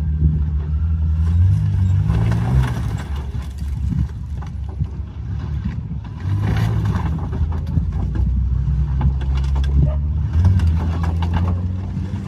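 Lifted Jeep's engine revving up and down, loud and close, as it crawls over junked cars, with noisier surges about two seconds in and again midway.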